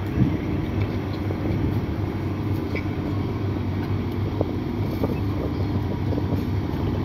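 Steady low engine hum, an engine running at idle, with a few faint clicks over it.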